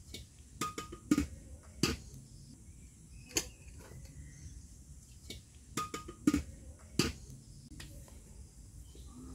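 Metal cooking pot and bowls clinking and knocking as boiled arrowroot is handled, about eight sharp knocks spread through, a couple of them ringing briefly.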